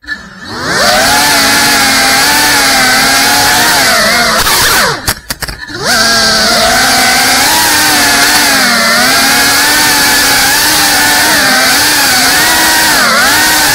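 The brushless motors and ducted propellers of a GEPRC Cinelog35 FPV cinewhoop whine as it flies, spinning up from rest at the start, with the pitch wavering up and down as the throttle changes. About five seconds in, the whine slides down and drops away briefly, then rises back.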